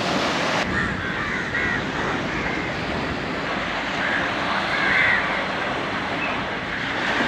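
Crows cawing several times in short calls over a steady rush of sea and wind.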